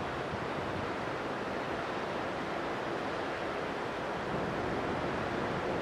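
Steady, even rush of wind over the camera microphone, with no distinct events.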